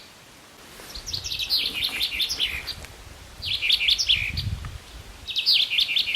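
Small songbirds chirping: rapid strings of short, high, falling notes in bursts of about a second, repeated every couple of seconds.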